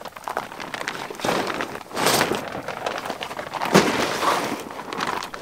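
Nylon fabric of an inflatable Rapid Raft rustling and swishing as it is swung through the air to scoop air into it, then crackling as the opening is gathered up to be rolled shut.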